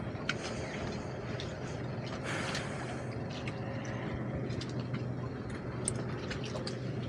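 A motor running with a steady low hum, with scattered light clicks and a brief hiss about two seconds in.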